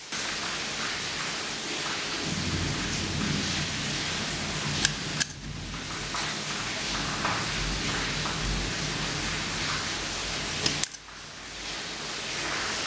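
Scissors cutting through the thin aluminium wall of a soda can: a steady crinkling, crackling rasp of the metal being sheared, with sharp clicks about five seconds in and again near the end.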